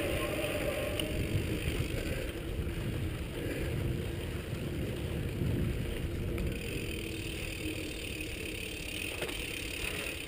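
Mountain bike rolling over concrete pavement, heard through a chest-mounted camera: a steady low rumble of tyre and wind noise with faint drivetrain rattle.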